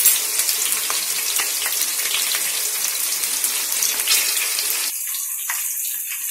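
Sliced onions, green chillies and mint frying in hot oil in an aluminium pot: a steady sizzle with small crackles and pops, a little quieter about five seconds in.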